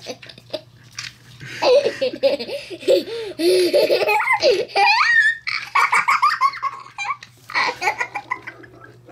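A young child laughing in quick repeated bursts, with a rising squeal about halfway through. A few light clicks come just before, and a faint steady low hum runs underneath.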